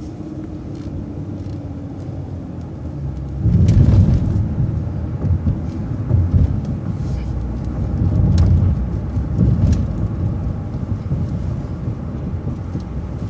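Road vehicle driving along, heard from inside: a steady engine and road rumble that grows heavier and rougher about three and a half seconds in.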